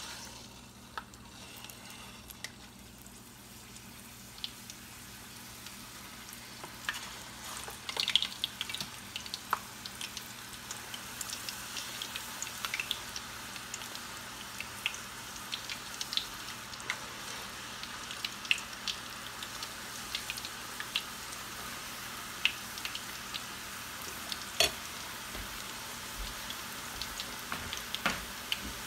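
Scotch eggs (boiled eggs wrapped in minced chicken) deep-frying in hot oil in a stainless steel pot: a steady sizzle peppered with frequent sharp pops. The sizzle grows louder over the first several seconds as more eggs are lowered into the oil.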